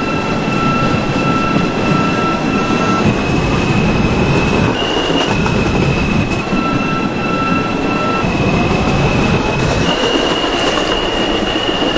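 New York City subway train running between stations, heard from inside the car: a steady loud rumble of wheels on rail, with high steady whining tones that step up and down between a few fixed pitches.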